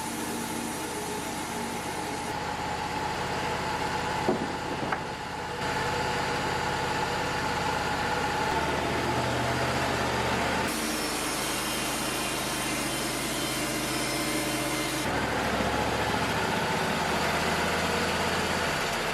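Wood-Mizer LT35 portable band sawmill running, its engine and band blade cutting through a log, with two sharp clicks about four and five seconds in. The sound changes abruptly a few times.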